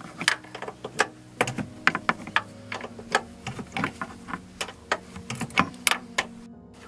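A 13 mm wrench clicking irregularly, a few sharp metallic clicks a second, while it works a stiff strut top-mount locking nut loose in short swings.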